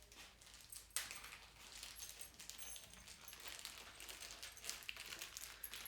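Faint small metal clicks and scratching as a screw is backed out of the motorcycle fairing with a hand tool, with one sharper click about a second in and a few light metallic clinks.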